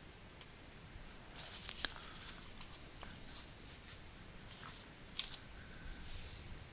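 Faint, scattered rustling and clicking noises in short irregular bursts over a low hiss.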